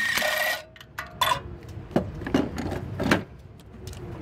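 A cordless ratchet motor whirs for about half a second, backing out a spark plug through a 13/16 socket and extension. Several sharp metallic clicks and knocks of the tool and socket follow.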